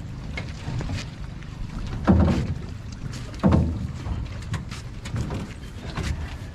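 Two heavy thumps of footsteps landing in a moored rowboat, about a second and a half apart, with small knocks and clicks around them. Wind rumbles on the microphone throughout.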